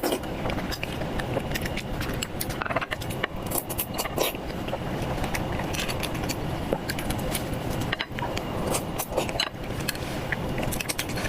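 Eating sounds: many small clicks and scrapes, with chewing, over a steady low background rumble.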